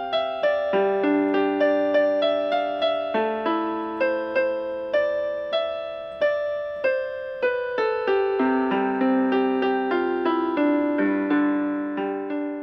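Background music: a slow piano tune of struck notes and chords, fading out near the end.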